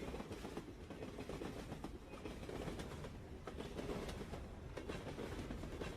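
Railway carriage running along the track: a steady low rumble of the wheels on the rails with faint, irregular clicks.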